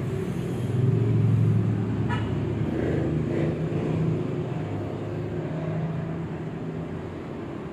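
A motor vehicle engine running nearby, a low steady hum that swells about a second in and slowly fades, with one short click about two seconds in.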